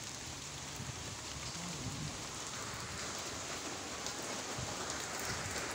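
Steady rain falling on wet ground and puddles, an even hiss with the odd sharper tick of a single drop.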